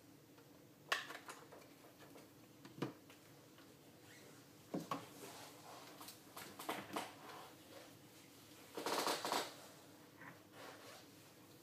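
Handling noises from a handheld antenna analyzer's plastic case and its battery pack being taken off and set down on a table: a few sharp clicks and knocks, then a short rasping scrape about nine seconds in.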